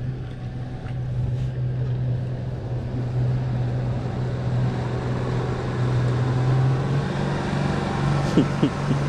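Outboard motor on a small flats boat running steadily at close range as the boat passes and swings through a U-turn. It grows gradually louder toward the end.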